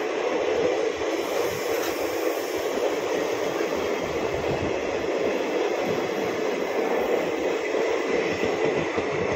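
Passenger train coaches rolling past on the adjacent track: a steady running noise of wheels on rails.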